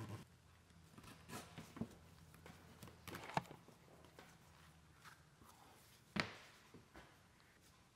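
Faint handling noise of leather pieces being moved and flexed by gloved hands on a plywood workbench: scattered soft taps and rustles, with one sharper knock about six seconds in.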